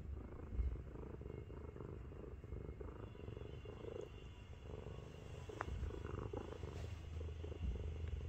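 Heavy 7.5 kg domestic cat purring, a deep, steady, pulsing rumble that its owner likens to a tank.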